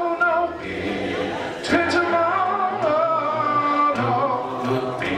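A man singing a slow gospel hymn, holding each note long, with new phrases starting about a second and a half in and again near the end.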